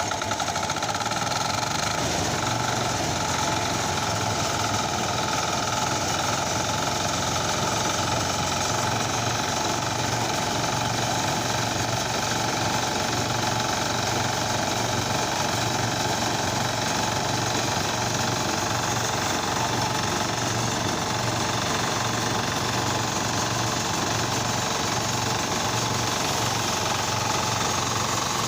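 A small engine running steadily at one constant speed, with an even low throb, cutting in suddenly out of quiet.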